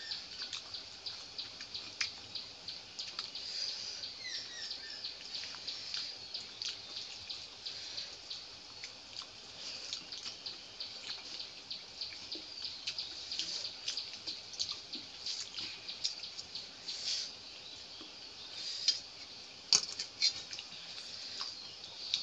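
Small birds chirping rapidly and continuously in short, quick notes. A few sharp clicks stand out near the end, fingers working rice against the steel plates.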